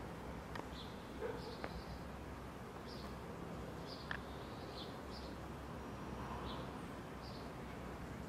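Faint outdoor ambience of small birds chirping, short high chirps repeating every half second to a second over a steady hiss, with a few faint clicks.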